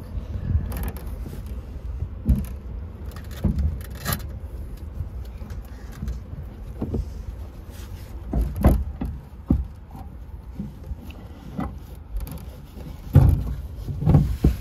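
Metal parts and fittings being handled: irregular clicks, knocks and scrapes, with a few heavier thumps near the end, over a low rumble.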